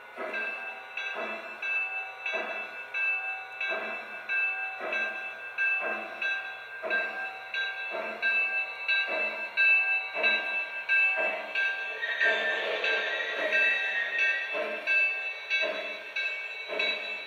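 Lionel Legacy Nickel Plate Road 2-8-0 Consolidation O-gauge locomotive's onboard sound system giving slow steam chuffs, about one a second, with a steady hiss and tones over them as the model creeps along at a crawl. A higher tone joins for a couple of seconds past the middle.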